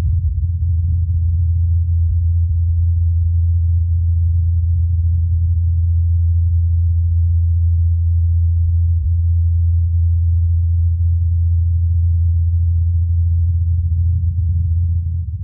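NASA's Ingenuity Mars helicopter in flight, its two counter-rotating rotors making a steady, unbroken low hum. The recording comes from the Perseverance rover's SuperCam microphone and is filtered to isolate the helicopter, so only the low rotor tone remains.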